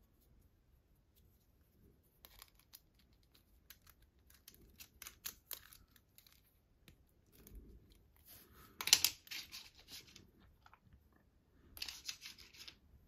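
Small plastic toy car from a Kinder Surprise egg being handled: scattered light clicks and rustles, with a louder crackle about nine seconds in and another short one near the end.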